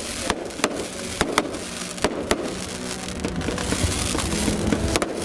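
New Year's fireworks: a string of sharp bangs and cracks at irregular intervals over a continuous crackling haze.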